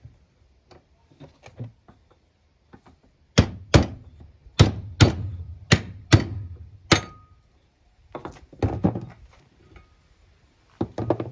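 Hard knocks on the metal parts of a Central Machinery wood lathe as it is taken apart for a bearing change: about seven strikes in quick succession a few seconds in, one with a brief metallic ring, then a few lighter knocks later.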